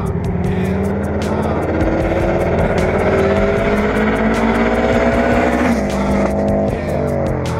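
A Subaru WRX/STI's turbocharged flat-four accelerating hard, its engine note climbing steadily, then dropping sharply about six seconds in and falling away. Hip-hop music with a steady beat plays over it.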